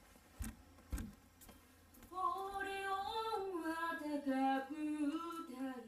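A solo voice singing a short unaccompanied melody in held, steady notes that step downward, starting about two seconds in. Before it come two dull thumps.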